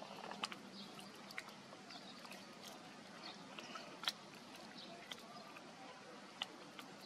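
Long-tailed macaque picking up and eating grain from concrete: a faint background with scattered sharp clicks and ticks, the loudest about four seconds in, and a few faint high chirps in the first half.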